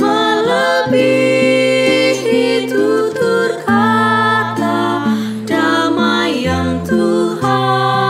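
A small vocal group singing a hymn in Indonesian in harmony, with acoustic guitar accompaniment.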